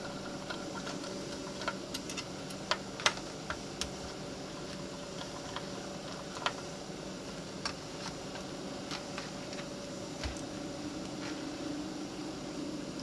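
A screwdriver and small screws clicking and tapping against a thin metal hard-drive mounting bracket as the screws are backed out and set down: irregular sharp ticks, several close together in the first few seconds and then sparser, over a steady faint hum.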